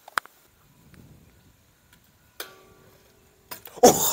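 A few isolated clicks, then near the end a loud, rough clatter as a stunt scooter rolls off across concrete.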